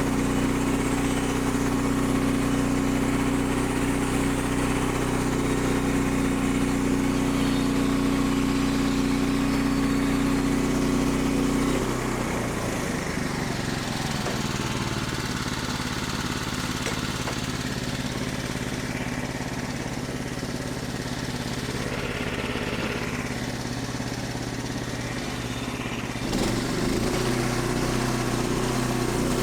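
Portable band sawmill's gasoline engine running steadily. About twelve seconds in its speed and loudness drop and stay lower, then rise again near the end.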